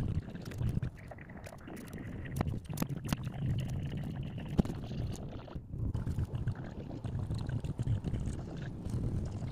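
Hands handling and rubbing a mask on a head form, with scattered small clicks and taps over a low, uneven rumble.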